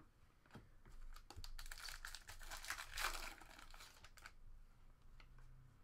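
Foil trading-card pack wrapper crinkling for about three seconds, with light clicks and taps of cards being handled before and after.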